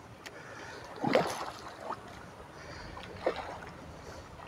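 A hooked carp splashing at the water's surface as it is fought in close on rod and line: one loud splash about a second in, then smaller splashes at about two and three seconds.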